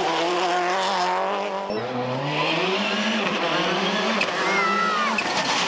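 Subaru Impreza rally car's turbocharged flat-four engine revving hard, its pitch climbing and dropping back at each gear change. A brief high tyre squeal comes near the end.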